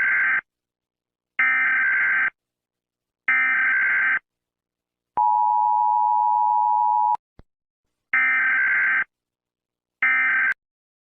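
Emergency Alert System signal: three harsh electronic data bursts of about a second each, then the two-note EAS attention tone held for about two seconds, a click, and two more data bursts, the last cut short.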